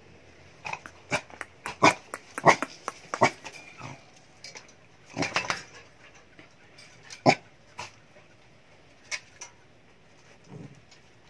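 Small dogs barking in short yaps: a quick run of them in the first few seconds, a cluster around the middle, then a few scattered single yaps.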